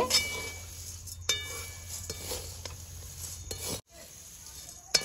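Perforated metal spatula stirring and tossing dry fried poha chivda in a metal kadai: a dry scraping rustle, with a ringing clink of the spatula against the pan about a second in.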